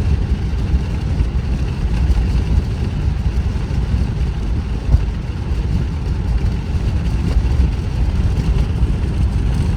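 Steady low rumble of a car driving at about 35 mph: engine and road noise from the moving vehicle, with one brief small bump about five seconds in.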